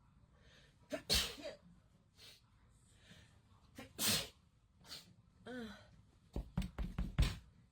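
A person sneezing hard twice, about a second in and again about four seconds in, set off by a nasal swab in the nose. Breathy gasps come between the sneezes, and a quick run of short sharp sounds follows near the end.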